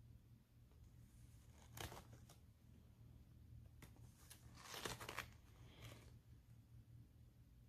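Faint rustles of a disc-bound mini planner's paper pages and cardstock month dividers being turned by hand: a few soft page turns, the longest and loudest about five seconds in.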